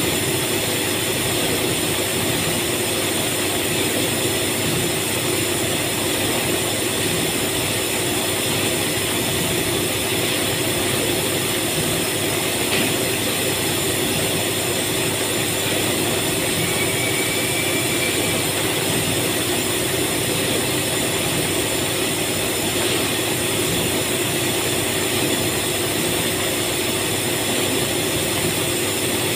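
Steady drone of industrial machinery running: a constant hum with several held tones over a hiss, with a faint click about thirteen seconds in.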